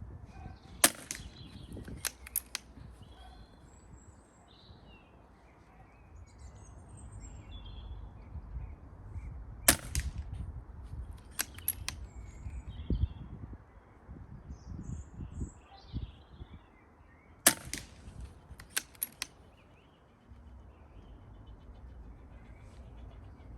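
Silenced Daystate Delta Wolf .177 PCP air rifle firing three shots, each a sharp crack, spaced about eight seconds apart. Each shot is followed a second or so later by a couple of lighter clicks.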